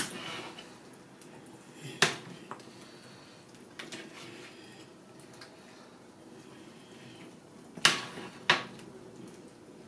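A cooking spoon stirring soup in a stainless steel pot, clinking against the metal pot: one sharp knock about two seconds in, a softer one near four seconds, and two close together near the end.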